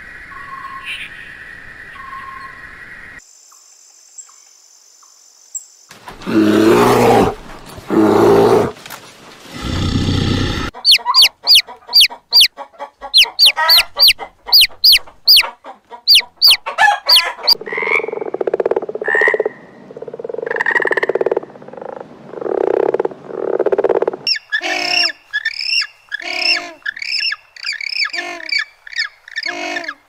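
A string of different animal calls, cut one after another. About six seconds in come two loud calls. From about eleven seconds domestic chicks peep rapidly in high, falling notes, then a hen clucks low and repeatedly, and quick calls from another animal follow near the end.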